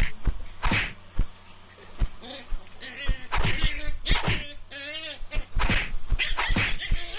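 A kitten and a puppy play-fighting: repeated sharp knocks and taps of paws and bodies on the floor and bamboo rail, with high, wavering animal cries in the middle and again near the end.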